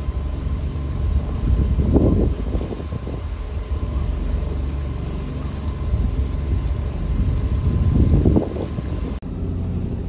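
Sailboat's inboard engine running steadily under way, a low even drone. Two louder rough bursts rise over it about two seconds in and again near eight seconds.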